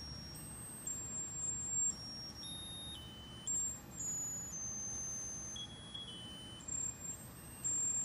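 Musical lotus-flower birthday candle playing its electronic melody: thin, high beeping notes stepping from pitch to pitch, one after another.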